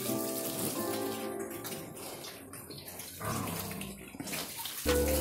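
Background music with held notes over a steady hiss; a low rumble comes in near the end.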